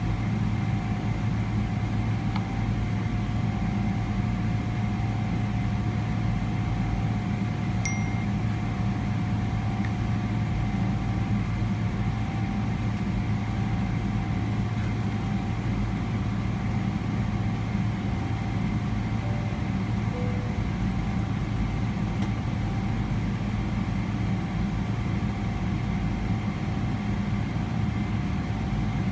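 Steady cabin hum inside a Boeing 777-300ER standing still on the runway with its engines at idle, several steady tones over a low rumble. About two-thirds of the way through, a faint two-note chime sounds, the second note lower.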